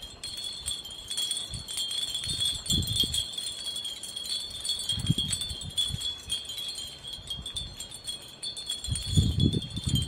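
Many hanging wind chimes ringing steadily, with a stream of light clinks and a held high tone. Three brief low rumbles come and go, about three, five and nine seconds in.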